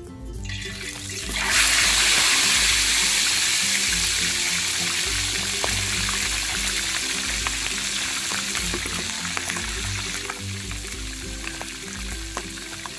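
Boiled pork hock deep-frying in hot oil in a large wok: a loud sizzle starts abruptly about a second and a half in and slowly eases, with scattered pops of spattering oil. Background music plays underneath.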